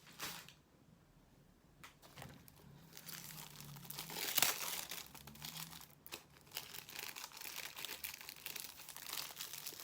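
Plastic packaging and bags from a diamond painting kit crinkling as they are handled. A brief lull near the start, then irregular rustling that comes and goes.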